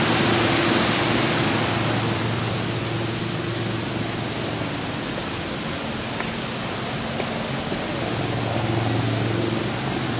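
Waterfall's steady rushing water, an even hiss-like roar with no breaks.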